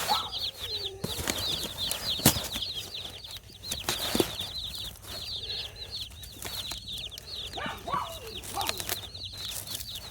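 A box of day-old Cornish Cross chicks peeping, a dense, unbroken chorus of high, short, downward-sliding peeps. Scattered knocks and rustles of cardboard and tape being handled come through the chorus.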